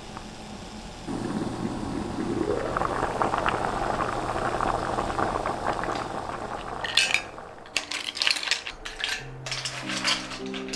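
Steamed mussels tipped from a pot onto a ceramic plate: a hiss rising in pitch, then from about seven seconds in the shells clatter and clink against the plate. Background music comes in over the clatter.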